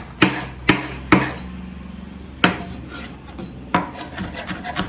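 Kitchen knife chopping capsicum on a cutting board: a few separate sharp knocks, then quicker, lighter chops at about five a second near the end.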